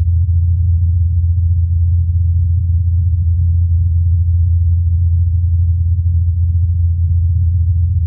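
Ingenuity Mars helicopter's rotor blades humming as one steady low tone. Recorded on Mars by the Perseverance rover's SuperCam microphone and filtered to bring out the 84 Hz blade hum.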